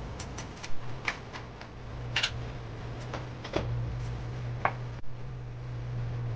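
Kitchen utensils clicking and knocking against a steel pot about ten times at irregular intervals, over a steady low hum.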